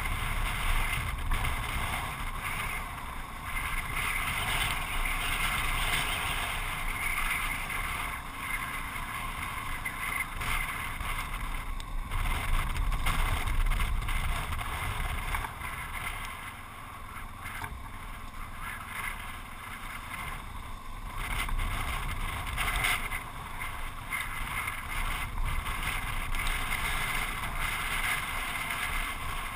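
Yamaha XT660Z Ténéré's single-cylinder engine running while riding along a gravel road, mixed with wind noise and tyre noise on the gravel. The overall sound drops a little past halfway, then picks up again.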